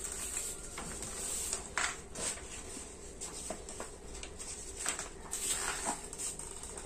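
A paper sheet being handled and propped on a small wooden easel: scattered rustles and light knocks and taps.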